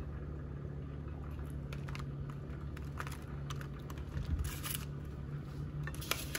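Scattered soft rustles and crinkles of shredded mozzarella and aluminium foil being handled as cheese is piled onto foil-wrapped baked potatoes. The most distinct crinkles come about halfway through and near the end, over a steady low hum.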